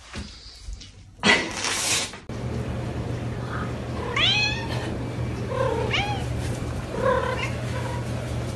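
A cat meowing three times in drawn-out calls that rise and fall in pitch, over a steady low hum. Before the calls, about a second and a half in, there is a loud, brief rush of noise.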